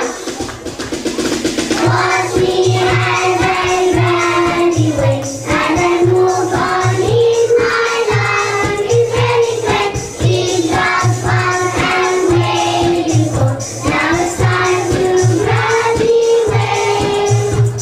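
Young children's choir singing in unison over a backing music track with a steady, evenly repeating bass beat.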